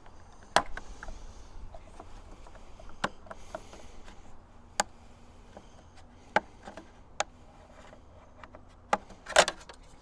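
Front cover plate of an Autel EV charger being pried off its body: a handful of sharp plastic clicks and light scraping spread out as the snap clips let go, with the loudest quick double snap near the end as the plate comes free.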